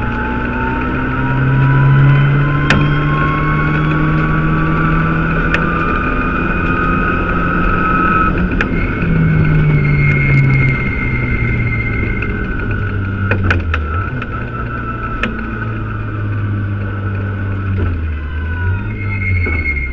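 Mitsubishi Lancer Evo X rally car's turbocharged four-cylinder engine heard from inside the cabin, driven hard with the engine note rising and falling through the gears and a long rising whine over the first eight seconds. Several sharp clicks sound over it, and the engine eases off near the end.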